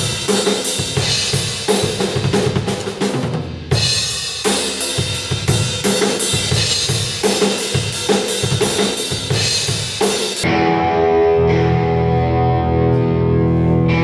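Yamaha drum kit played in a rock beat, with kick, snare and cymbals and a brief break about three and a half seconds in. After about ten seconds the drums stop and an amplified instrument takes over with a loud, held, distorted chord.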